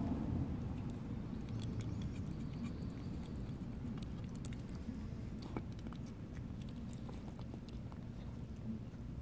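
A kitten chewing and licking food, heard as faint, irregular small clicks over a steady low hum.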